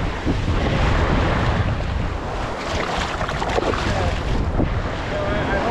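Wind rumbling on the microphone over the wash of water.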